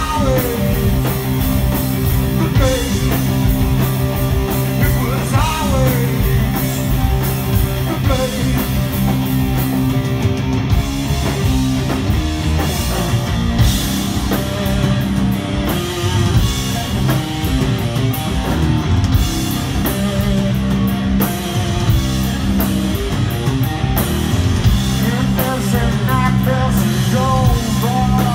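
Live stoner rock band playing loud: distorted electric guitars and drums with a vocalist singing into a microphone, heard through the crowd's recording from the floor of the venue.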